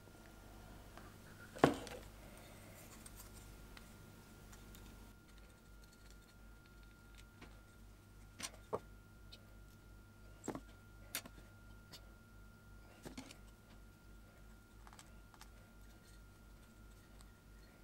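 Quiet handling of small oak workpieces while gluing: one sharp wooden knock about two seconds in, then scattered light clicks and taps as glue is worked into the mortises, over a faint steady hum.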